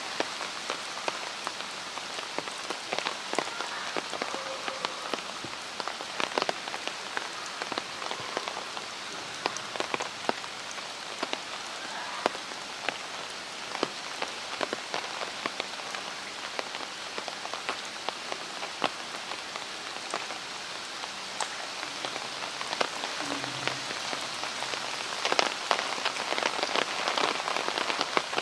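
Rain falling on wet concrete: a steady hiss thick with small ticks of drops, a little louder near the end.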